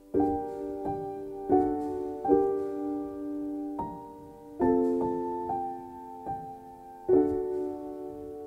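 Solo piano background music: chords struck about once a second, each left to ring and fade.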